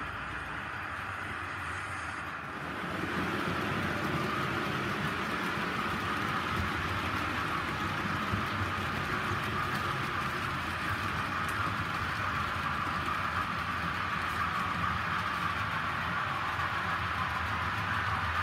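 Model train running on the layout's track: a steady whirring rumble of wheels on rails and motor, getting louder about three seconds in as the train comes close and then holding steady.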